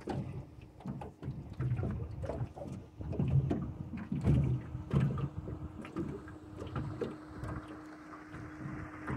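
Irregular knocks and low thumps from a small fishing boat on the water, with water lapping at the hull. A faint steady hum joins about halfway through.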